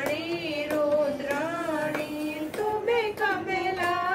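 Women's voices singing a Hindu devotional hymn to Durga in long, held notes, with hand claps keeping time about every half second to second.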